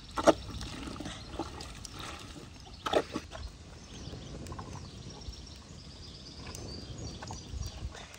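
Mulberry juice trickling and pouring, with two sharp knocks: one right at the start and another about three seconds in.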